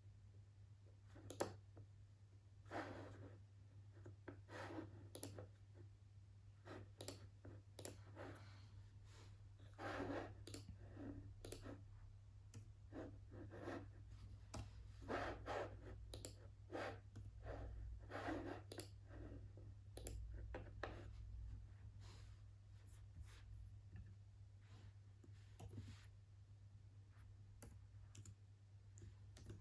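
Faint, irregular clicking of a computer mouse and keyboard at a desk, some clicks coming in short runs, over a low steady hum.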